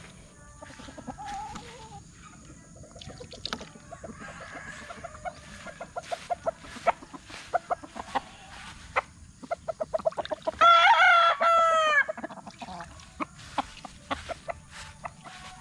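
Rooster crowing once, a loud cock-a-doodle-doo of about a second and a half in two parts, its end falling in pitch, about ten and a half seconds in. Before and after it come many quick short clucks and clicks.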